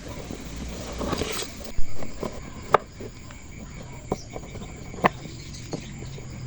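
A handful of sharp knocks at irregular intervals, typical of wood being tapped or set into place on stair treads, over a steady background hiss, with a rustling scrape and one louder hit just under two seconds in.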